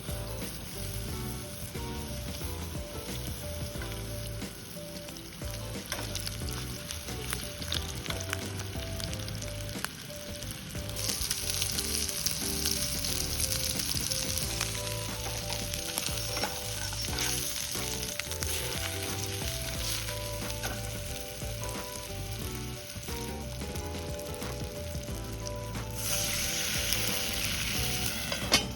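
Food frying in a hot pan, a steady sizzle that grows much louder for several seconds about a third of the way in and again shortly before the end, over light background music.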